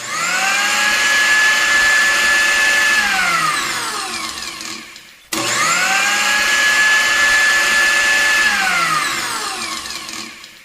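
Electric kitchen blender run twice. Each time the motor spins up in about a second to a steady high whine, holds for about two seconds, then winds down falling in pitch as it is switched off.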